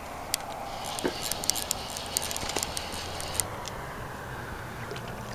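Fly reel clicking in quick, irregular ticks for about three seconds while a hooked channel catfish is played in, over a steady low hiss of wind and water.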